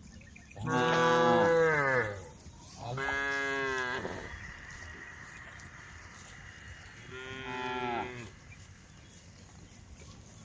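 Cows mooing: three long calls, the first and loudest about a second in, sliding down in pitch, then a second call around three seconds and a shorter one near eight seconds.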